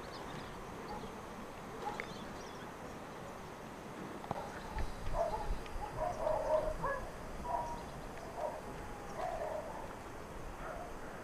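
A dog barking: a run of short, irregular barks from about four seconds in to near the end, over a steady background hiss.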